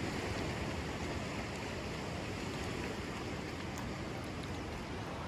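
Steady wash of ocean surf mixed with wind on the microphone, an even rushing noise with no distinct events.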